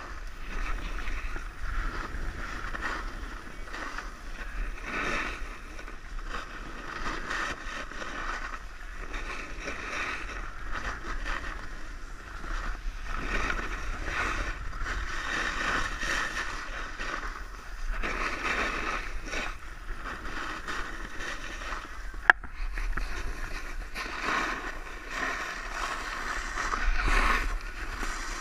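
A snowboard sliding and carving down a packed snow slope, its edges scraping the snow in surges that swell and fade with each turn, over a steady low rumble of wind on the microphone. A single sharp click about two-thirds of the way through.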